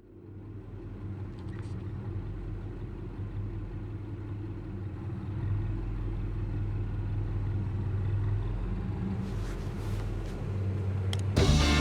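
A low, steady rumbling drone fading in from silence, with a few faint ticks over it. Band music comes in loudly near the end.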